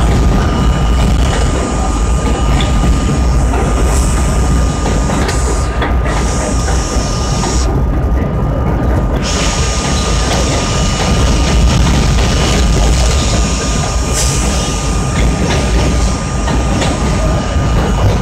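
R32 subway train running at speed over elevated bridge track, heard from inside the front car: a steady rumble of wheels on rail with a constant whine.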